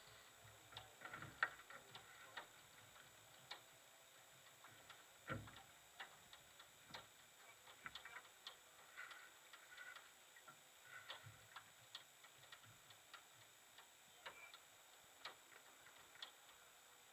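Near silence broken by faint, irregular clicks and ticks, a few every second, with a sharper click about a second and a half in.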